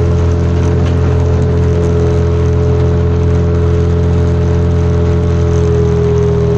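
Speedboat engine running steadily under way, a loud even drone.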